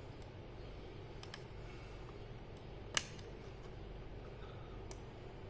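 A few small, sharp clicks, the loudest about three seconds in, from a screwdriver and tiny screws being fitted into an HP G6 laptop's chassis, over a low steady hum.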